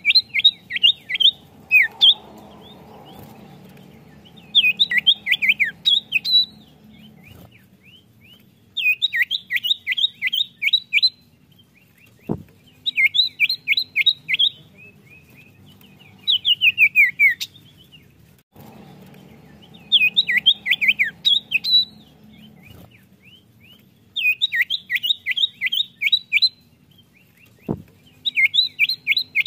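Common iora (cipoh) singing: repeated bursts of rapid, high, chattering notes, each burst about two seconds long, coming every few seconds. Two sharp clicks, one near the middle and one near the end.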